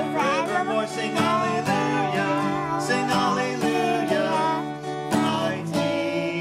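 Acoustic guitar strummed as accompaniment to a sung worship song, with a voice singing the melody over the chords.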